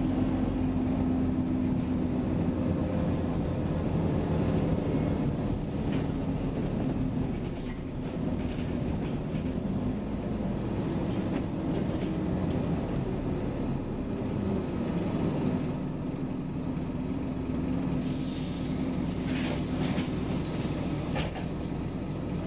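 Scania OmniCity single-deck bus's diesel engine running, the engine note rising and easing as the bus moves. About eighteen seconds in comes a few seconds of hissing with some clicks.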